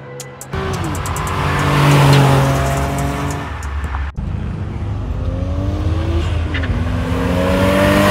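Performance cars accelerating hard past one after another, engines revving up and shifting, with an abrupt change to a different car about half a second in and again about four seconds in. Near the end a silver Mk4 Toyota Supra passes close, its engine note rising.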